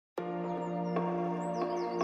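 Background music starts a moment in: a held low note under a steady chord, with soft pulses and short, high, falling bird-like chirps over it.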